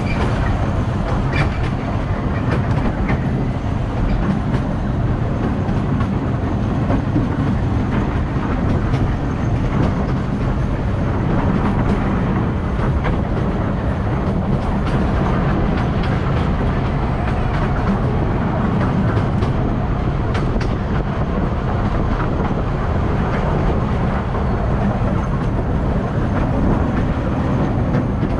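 Open carriages of a narrow-gauge park railway rolling along the track. Steady wheel-on-rail running noise, heaviest in the low range, with a few faint clicks.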